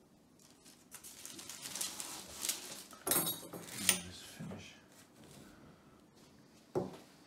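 Kitchen handling noise: shortbread fingers and a knife being moved about on a parchment-lined board. Rustling of paper, with two sharp clinks about three and four seconds in and a single knock near the end.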